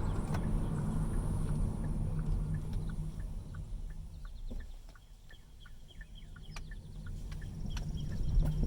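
2019 Hyundai Kona Electric moving slowly through a turn: low road rumble that eases off midway, a run of light ticks, and a sharp pop near the end. The pop is the popping noise the car makes when turning, which has grown louder over time and which other owners report too.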